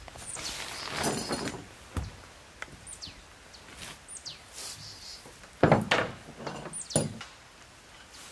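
Camp-pitching handling noises: tarp fabric rustling and a few heavy thuds, the loudest about two-thirds of the way in and again a second later. Behind them a bird gives several short, high whistles, each falling in pitch.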